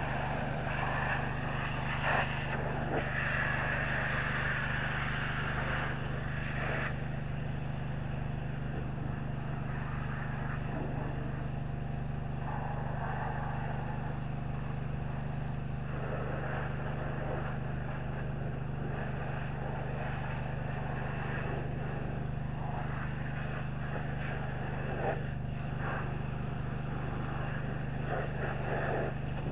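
Pressure washer running with a steady low engine drone, its high-pressure water jet hissing against a semi-truck's chassis, fuel tank and wheels, the hiss swelling and fading as the wand moves.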